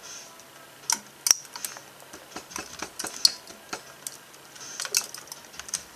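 Irregular light clicks and taps from handling a dried-out lead-acid battery being taken apart, its plates and plastic case knocking together.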